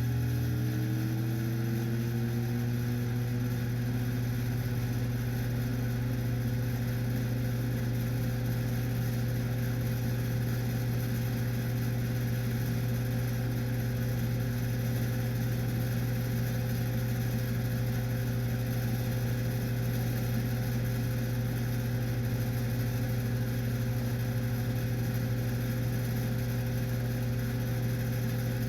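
Rusted desktop fan's motor running with a strong steady low hum and several higher whining tones that are still rising in pitch for the first few seconds as it comes up to speed, then hold steady.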